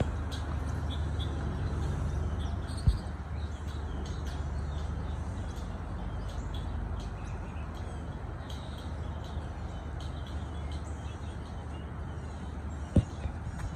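Old truck's engine running as it pulls a utility trailer away, its low hum easing slowly as it recedes. Birds chirp over it, and two sharp knocks sound, about three seconds in and near the end.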